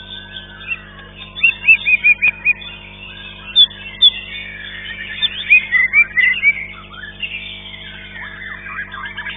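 White-rumped shama (murai batu) singing in full contest song: two runs of loud, quickly repeated whistled notes, about a second and a half in and again past the middle, over a constant chatter of other songbirds.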